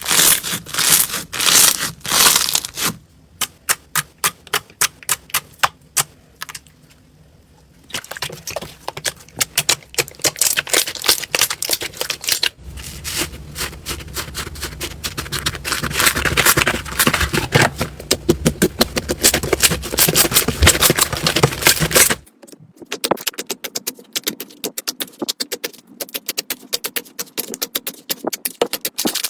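Slime being pressed, poked and stretched by hand, with dense crackling and popping clicks, as of crunchy slime. The texture changes abruptly several times, at about 3, 8, 12 and 22 seconds.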